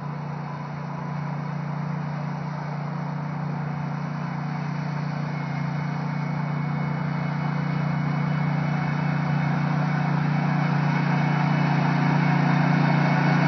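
Engine of a commercial stand-on lawn mower running steadily while mowing, growing gradually louder as the mower comes closer.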